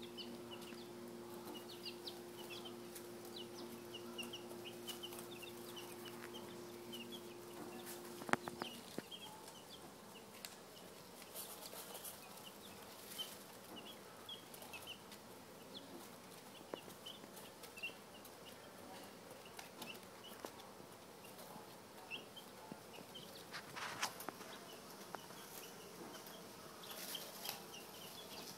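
A brood of ten-day-old American Dominique chicks peeping constantly in short, high notes, with occasional rustles in the wood shavings. A steady low hum stops with a click about eight seconds in.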